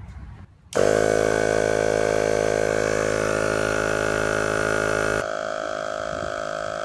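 Portable air compressor switching on abruptly and running with a steady buzzing drone, inflating low RV tires. About five seconds in the hiss above the drone drops away while the motor keeps running.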